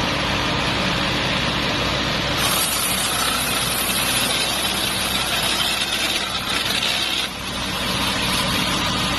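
Engine-driven disc wood chipper running steadily. About two and a half seconds in, a brighter, harsher hiss joins the engine, and the sound briefly drops about seven seconds in.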